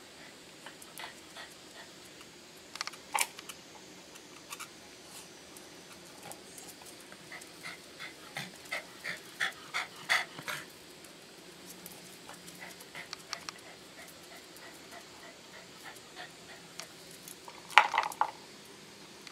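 Papillon panting in a run of quick breaths, with small ticks and scuffs around it; near the end a louder short clatter as a stone is knocked about on the concrete.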